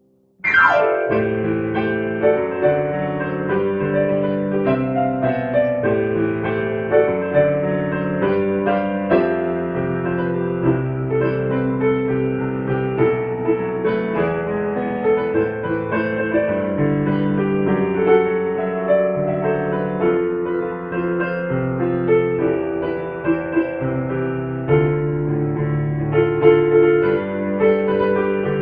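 Background piano music, a steady flow of chords and melody notes that begins abruptly at the start.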